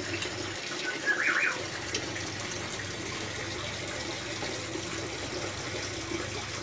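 Steady hiss like running water, with one short bird chirp about a second in.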